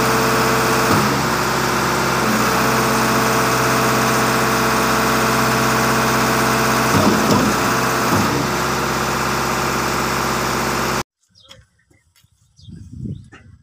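Diesel engine of a Schwing Stetter SP1200 concrete pump running steadily, with a few brief knocks over it. The sound cuts off abruptly about eleven seconds in, leaving only faint low sounds.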